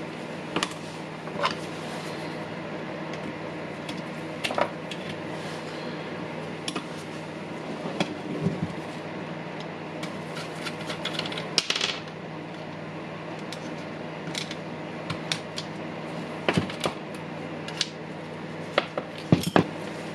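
Small hard parts and hand tools being handled on a workbench while a cordless rotary hammer is taken apart, making scattered irregular clicks and clinks over a steady low hum.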